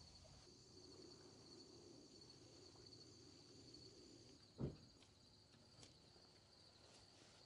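Near silence: a faint, steady high-pitched trill of insects, with one short dull thump a little past halfway.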